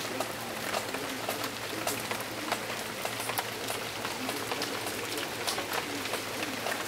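Steady rain falling, with many irregular drips and spatters.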